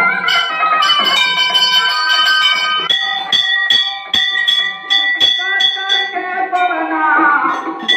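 Temple bell rung during a puja. From about three seconds in it is struck in a steady run of about three strokes a second, each stroke ringing on, with music underneath.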